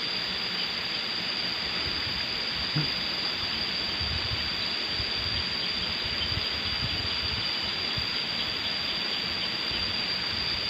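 River water running steadily, with a constant high-pitched tone over it.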